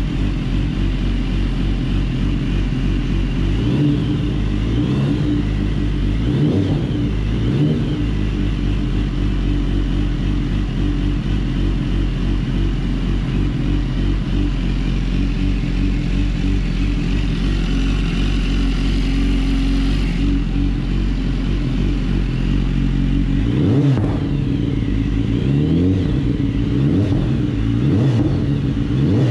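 The inline-four engine of a BMW S1000RR sport bike, a freshly installed replacement, running steadily as it warms up to operating temperature. A few short revs rise and fall around four to eight seconds in and again near the end.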